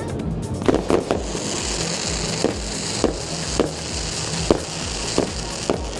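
Fireworks display: aerial shells exploding in a string of sharp bangs, about nine of them at uneven intervals, over a steady background hiss.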